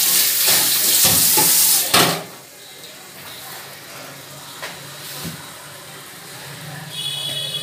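A loud hiss for about two seconds that stops with a clunk, then a softer steady sizzle of chicken pieces frying in masala in a hot pan.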